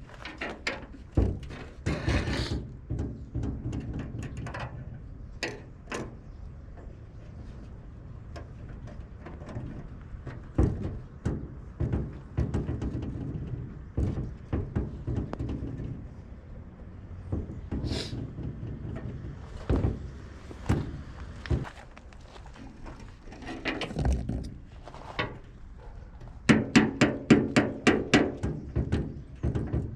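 Hand work on a truck's steel fuel tank while a fuel sending unit is fitted: scattered metallic knocks and clanks. About three-quarters of the way in, this gives way to a fast, even run of hammer taps, about six a second.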